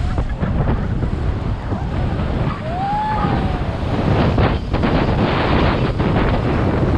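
Wind buffeting the microphone and water rushing and splashing along the side of a towed inflatable banana boat moving at speed. The rush of spray gets louder about four seconds in.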